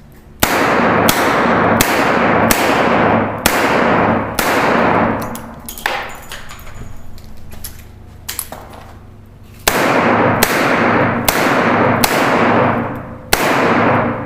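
Revolver shots from a Smith & Wesson Model 66 .357 Magnum revolver, each sharp crack followed by a long echoing tail. A string of shots is followed by a pause of several seconds for a speed-loader reload, then a second quick string of shots.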